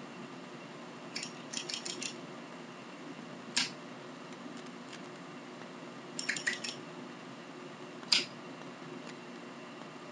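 Metal Zippo lighter being worked by hand, its hinged lid snapping open and shut: a quick run of four or five clicks about a second in, a single click, another quick run past the middle, then one louder click later.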